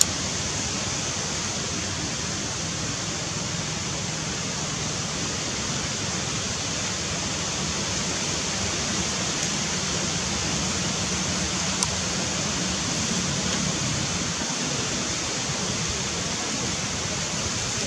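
Steady, even hiss of outdoor background noise with no distinct source, and one faint click about twelve seconds in.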